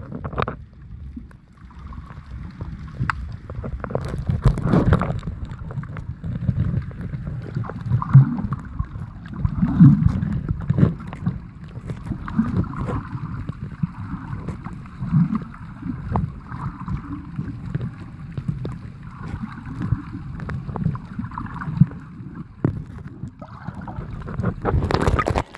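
Muffled underwater sloshing and low rumbling around a phone recording below the surface, rising in irregular surges every second or two. Just before the end there is a loud splash as the phone breaks the surface.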